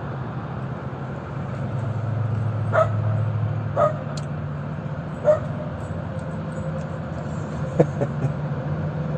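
Dog barking, about five barks spaced irregularly, over a steady low hum.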